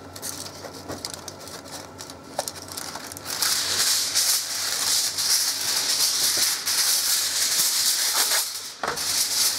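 A sheet of aluminum foil being pulled off the roll and handled, crinkling. Quiet for about three seconds, then a dense, continuous crackle.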